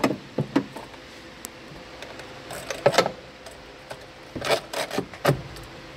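Several sharp knocks and rattling clatters of objects being handled, in bunches: a few at the start, the loudest about three seconds in, and more near the end, over a faint steady hum.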